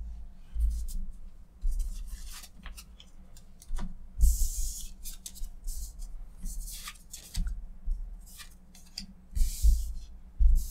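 Magic: The Gathering cards being slid across a cloth playmat and swept together into a pile: several short swishes of card on cloth, with light clicks of cards meeting and a few dull knocks on the table.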